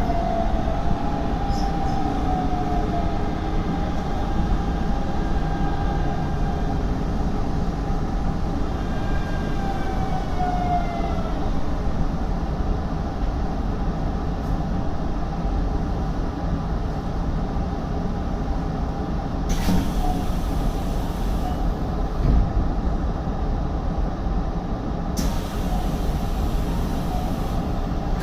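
Hanshin Mukogawa Line electric train 5511F running, heard from on board, with steady wheel and rail noise. A falling whine from the motors sounds near the start and again about ten seconds in. Two short bursts of hiss come in the second half.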